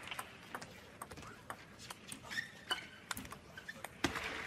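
Table tennis ball clicking sharply and irregularly off the rackets and the table during a rally. The crowd noise swells near the end.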